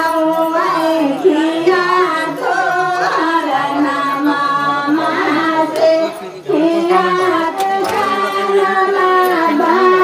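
A group of women singing a traditional wedding song together in long, drawn-out phrases, with a brief break about six and a half seconds in.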